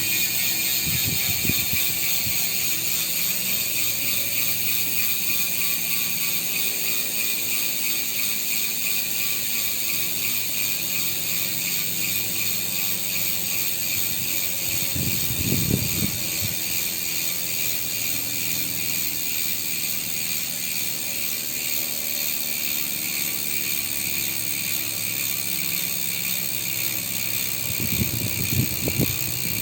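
Shimano MT401 Microspline rear hub freewheeling: the freehub pawls make a fast, continuous ratcheting buzz. Short low knocks come three times, about a second in, in the middle and near the end.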